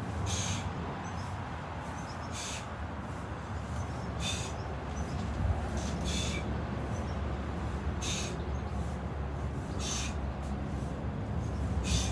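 A person breathing out sharply, about once every two seconds, in time with repeated face-down arm-and-leg lifts (the starfish exercise), over a steady low rumble.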